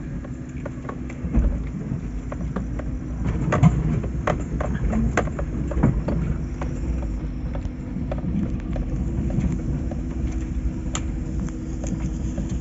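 A vehicle on the move: a steady low rumble with a faint steady hum, and frequent short clicks and knocks scattered through it.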